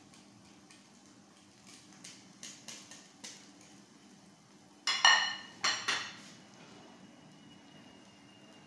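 Metal tongs tapping and scraping on a ceramic plate. About five seconds in comes a loud ringing clatter, with two more clinks soon after, as the plate and tongs are set down.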